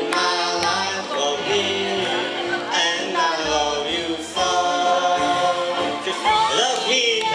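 A man singing into a handheld microphone through a PA, over recorded backing music with a bass line.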